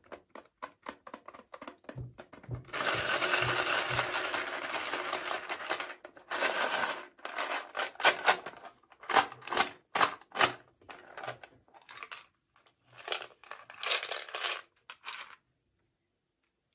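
Plastic toy packaging being handled and torn open: a run of small clicks and taps, then about three seconds of steady crinkling, then a series of short sharp crinkles and tears.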